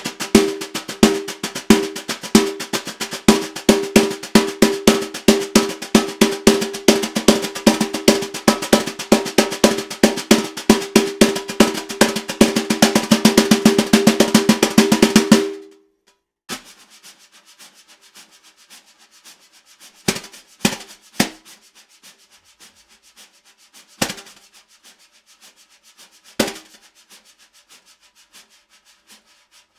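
Snare drum played with wire brushes: a fast, dense stream of brush strokes and sweeps on the head that stops abruptly about halfway through. After that come about half a dozen isolated strokes with quiet between them.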